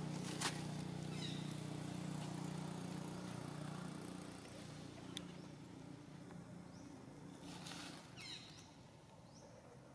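A steady low motor hum that fades out after about eight seconds. Short, high, falling chirps come about a second in and again near eight seconds, and there is a sharp click about half a second in.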